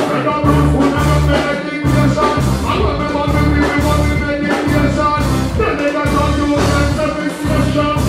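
Live dancehall band playing through a PA system, with a heavy repeating bass line and a vocalist singing over it on the microphone.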